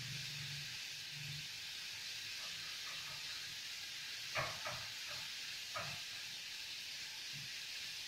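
Garlic and cumin seeds sizzling in hot oil in a small pan, a steady frying hiss as the tadka browns, with a few faint clicks about four and a half and six seconds in.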